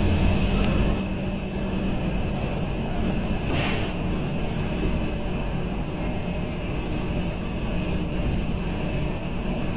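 Hearing-test tone: a very high-pitched pure tone climbing slowly in small steps toward the upper limit of hearing, the kind of sweep where the point at which it fades out for a listener is read as the age of their ears. Under it runs a steady noisy background with a faint low hum.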